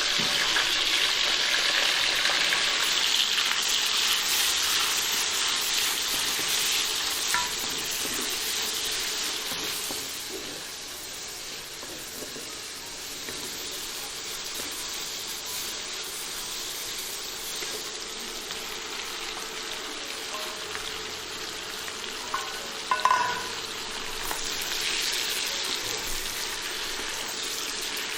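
Food sizzling in hot oil in a pan as it is stir-fried: loudest for the first several seconds, then settling to a steady, lower sizzle. A brief metallic clink near the end.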